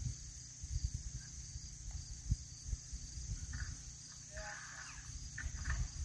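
A steady high-pitched chorus of crickets and other insects, over an uneven low rumble on the microphone. A few faint brief sounds come in the second half.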